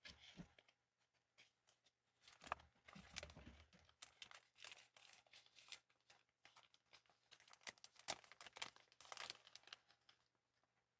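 Pop Mart blind-box packaging being handled, crinkling and tearing in a run of quick crackles and light taps, busiest about two to four seconds in and again around eight to nine seconds.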